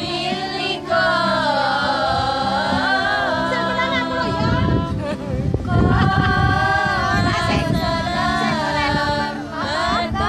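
A group of women singing sholawat, Islamic devotional songs praising the Prophet, together in unison.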